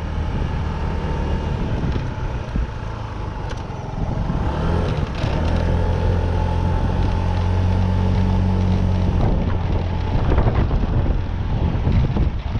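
A motor vehicle engine running steadily, its low hum strongest for a few seconds in the middle, over a rushing background noise.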